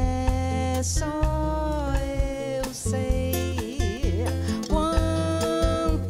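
Live band playing Brazilian music: nylon-string acoustic guitar, electric bass and drum kit, with a voice singing long held notes that waver in pitch about halfway through.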